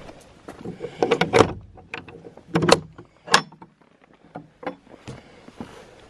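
Wooden gate with an iron ring-handle latch being opened by hand: sharp metal clicks and wooden knocks, a cluster about a second in, then two louder single clacks near the middle and a few softer ones after.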